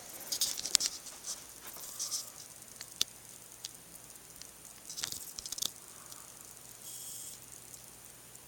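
Sealed Hot Wheels blister package being handled: scattered clicks and short crinkles of the plastic bubble and card, with the die-cast car shifting inside.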